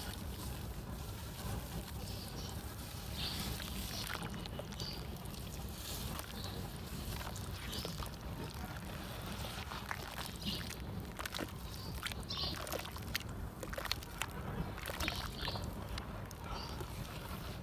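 Chunks of red dirt and concrete crumbling and dissolving in water, with scattered crackles and small sloshes.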